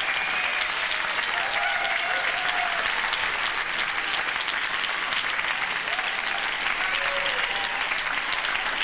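Club audience applauding steadily at the end of a stand-up comedy set.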